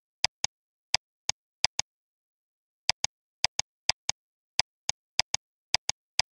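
Sharp computer mouse clicks, about twenty of them at an uneven pace and often in quick pairs, with dead silence between.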